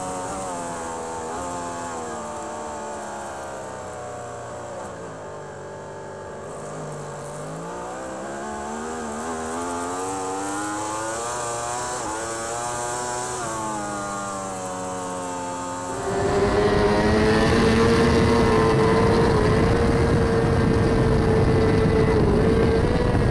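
Onboard sound of a racing Yamaha superbike's engine. The revs drop to a low point, then climb again in steps through several gear changes. About two-thirds of the way in it cuts to another superbike's onboard: louder, held at high revs at a steady pitch, with heavy wind noise.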